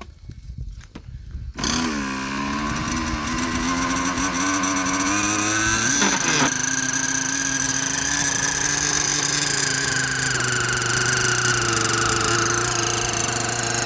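Unistar 60 radio-controlled helicopter's small glow engine catching suddenly about one and a half seconds in, rising in pitch as the rotor spools up, then running steadily at high revs with a high whine. It runs cleanly after its repair.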